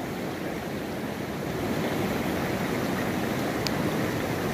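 Mountain stream rushing over rocks, a steady rush of running water.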